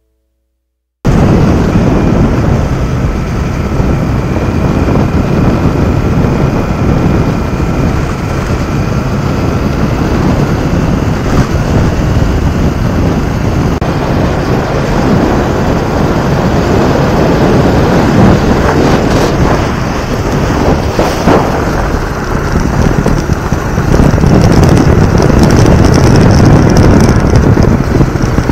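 Honda XL600V Transalp motorcycle ridden over a gravel and dirt track, its V-twin engine and tyre noise buried under loud wind buffeting on the on-board microphone. The roar starts suddenly about a second in.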